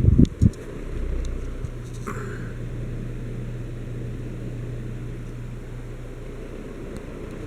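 Hunter Kensington ceiling fan running with a steady low motor hum and a faint rush of air, after a few low thumps in the first half second.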